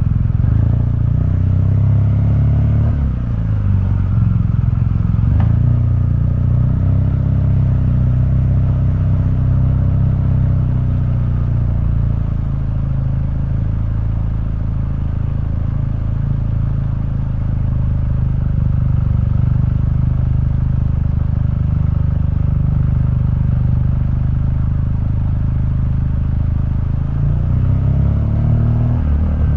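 2015 BMW R1200GS boxer twin running through its stock exhaust while the bike is ridden; the engine note dips about three seconds in, rises and eases over the next several seconds, then holds fairly steady and changes again near the end.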